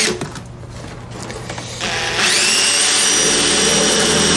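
Cordless drill boring a 3/8-inch hole through the aluminium lid of a pannier box. The drill eases off at first, then about two seconds in spins up with a rising whine and runs steadily at high speed as the bit cuts through the metal.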